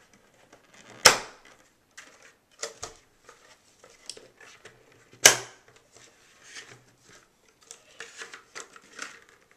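Plastic earmuff arms snapping into the side slots of a plastic hard-hat helmet: two sharp clicks about four seconds apart, with smaller plastic clicks and handling rattles between.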